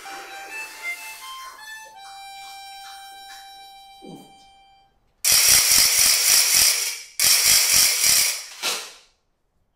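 Live foley for a cartoon: a few short melodic notes on a reed instrument, then a held chord that fades away. About five seconds in come two loud bursts of rattling, each about two seconds long, with a fast even clatter.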